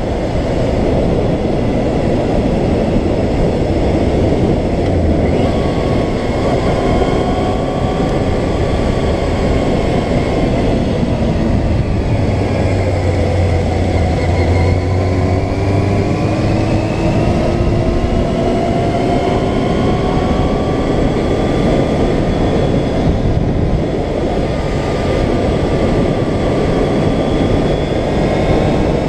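Motorcycle riding heard from a helmet-mounted camera: heavy wind rush over the microphone, with the Yamaha FZR600R's inline-four engine underneath, its pitch rising and falling with throttle and gear changes.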